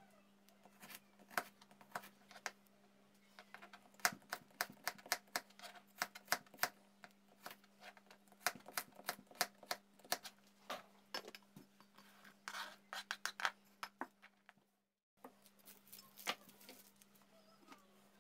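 Kitchen knife cutting carrot into matchsticks on a plastic cutting board: a run of quick, irregular knocks of the blade on the board. The chopping stops after a sudden break, followed by only a few scattered knocks.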